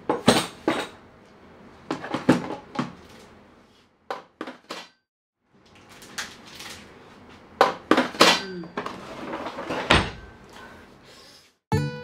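Things being put into a pull-out kitchen drawer: scattered knocks and clatters of a cardboard box and plastic organizers being set down and shifted. There is a short silent break in the middle and a heavier thud near the end.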